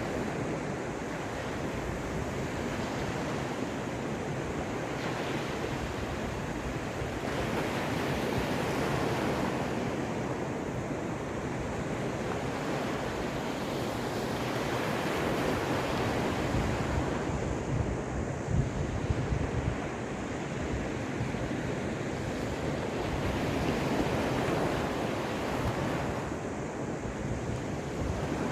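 Caspian Sea waves washing onto the shore, the surf swelling and easing every few seconds. Wind buffets the microphone, with a few stronger gusts about two-thirds of the way through.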